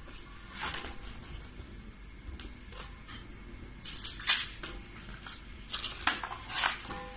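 Paper rustling and crinkling in short irregular bursts, loudest about four seconds in and again twice near the end, as a paper cut-out figure is pulled off a wall and handled over a fire in a steel bowl.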